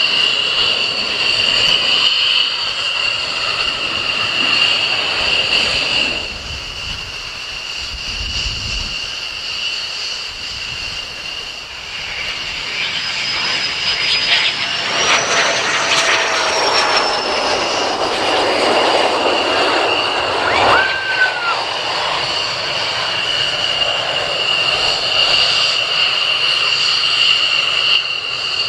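F-16 fighter jets' engines with a steady high whine. Midway a louder rush builds, its whine rising then falling as a jet passes on approach to land.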